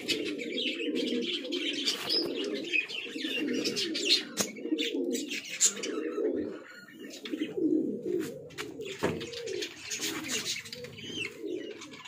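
Domestic pigeons cooing steadily, overlapping one another, with higher bird chirps and a couple of sharp clicks.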